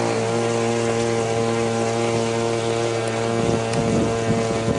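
Radio-control model aircraft engine and propeller running at a steady, unchanging pitch during a quick test run.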